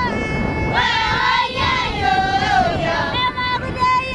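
Group of Maasai women and children singing together, with long held high notes.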